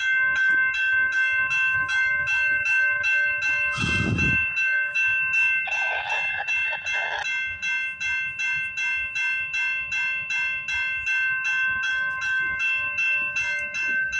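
Railway level-crossing warning bell ringing steadily, about three strikes a second, while the gates are down. A short low thump comes about four seconds in, and a brief hiss about six to seven seconds in.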